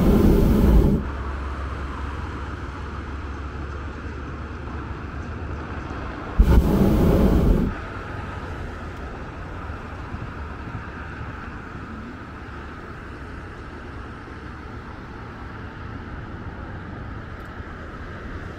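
Two short blasts of a hot-air balloon's propane burner, one at the start and one about six and a half seconds in, each lasting just over a second and starting and stopping abruptly, over a steady low rumble.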